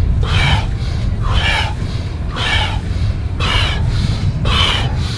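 Forceful, rhythmic deep breathing, about one loud breath a second: a round of Wim Hof-style power breathing, in through the nose and out through the mouth. A steady low rumble runs underneath.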